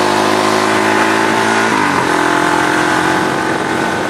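Quad bike (ATV) engine running steadily, its pitch dropping about two seconds in as it eases off.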